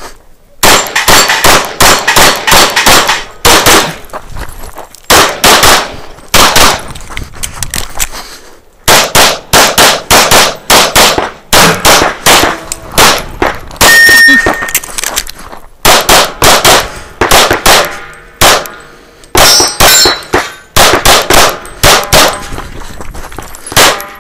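Semi-automatic pistol fired in rapid strings of shots with a few short breaks between them, the steel targets clanging and ringing when hit.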